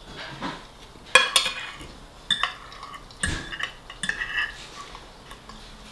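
Metal fork and spoon scraping and clinking against a plate, in four short bursts about a second apart.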